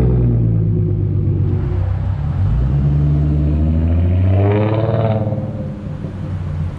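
Ford Mustang engine running loud and low, its pitch rising as it revs about four and a half seconds in, then settling back.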